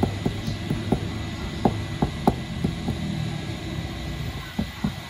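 Small hammer tapping lightly and repeatedly on the end of a stick-welding electrode, chipping off its flux coating: about a dozen sharp, uneven taps. A low steady hum runs underneath.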